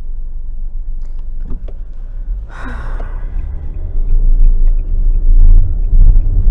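Car road noise heard from inside the cabin: a steady low rumble from the moving car that grows louder about four seconds in, with a brief hissing burst near the middle.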